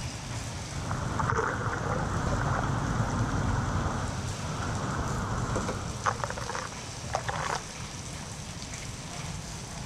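Floodwater rushing and splashing as it drains, a steady hiss with a few sharper splashes about six to seven and a half seconds in.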